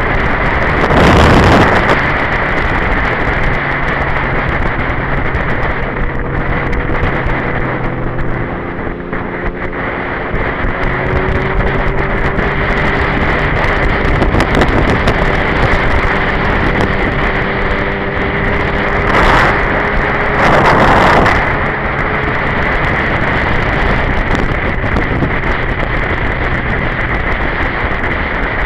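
Wind rushing over the microphone of a Honda sportbike rider at road speed, with the bike's engine running under it, its pitch slowly rising and falling. A loud gust of wind buffeting comes about a second in and twice more around two-thirds of the way through.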